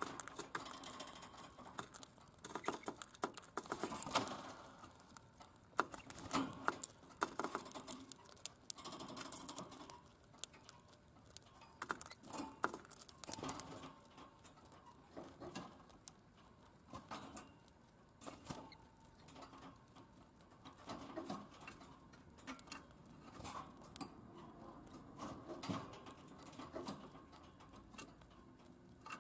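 Lutino budgerigar making a run of light, irregular clicks and taps, its beak pecking and its feet stepping on the plastic dish and perch of its cage.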